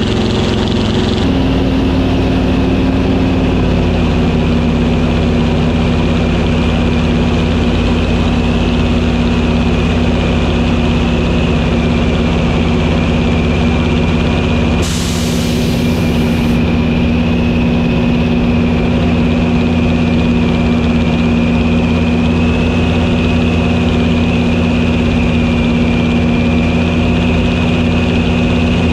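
Yak-3 fighter's piston engine and propeller heard from inside the cockpit in flight: a loud, steady drone with airflow noise. The pitch steps and eases slightly lower about a second in. A brief rush of high hiss comes about halfway through.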